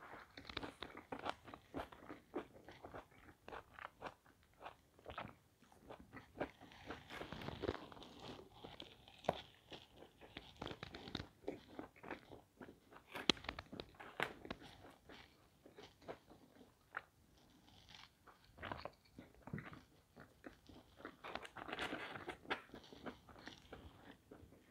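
A person chewing pizza crust close to a lapel microphone: irregular crunches and soft mouth clicks, with a few louder bites.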